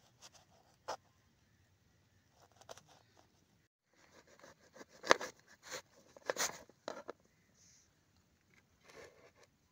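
Kitchen knife tapping on a plastic cutting board as green chillies are sliced, a few single sharp taps. After a short break, a denser run of knocks and scrapes as a lime is cut on the board, loudest about five seconds in, with a softer tap near the end.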